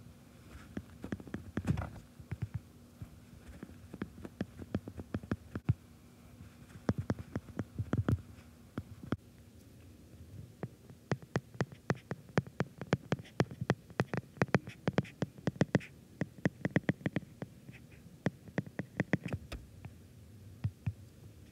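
Quick, irregular taps on a tablet's glass screen, often in rapid runs, as numbers are keyed on the on-screen keypad and figures are handwritten with a stylus.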